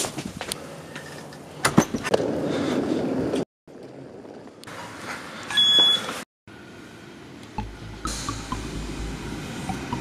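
Rustling and handling clicks, then a short, loud electronic beep from an Opal card reader at a station ticket gate. After that, an electric suburban train pulls into a platform with a low rumble.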